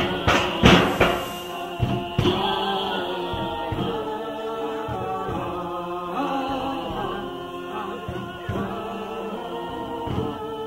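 Music of many voices chanting long held notes together, like a choir. A few loud thumps strike in the first couple of seconds.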